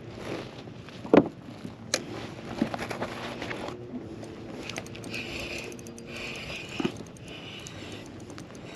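A spinning fishing reel being handled and cranked: a few sharp clicks and knocks of the tackle, the loudest about a second in, and the reel's gears whirring steadily for a few seconds in the middle.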